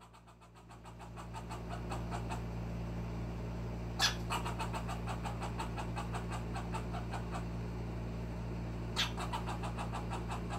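Young gray squirrel giving its alarm call, a fast, even string of chucks at about six a second, with two louder calls about four and nine seconds in: a warning at a cat seen outside.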